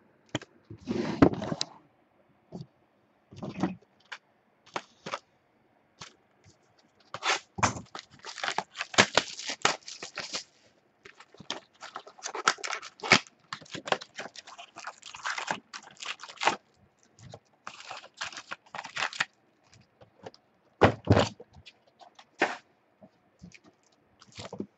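Wrapping on a box of Topps Chrome Baseball trading-card packs crinkling, tearing and scraping as it is opened by hand, in irregular crackling clusters with scattered clicks and knocks.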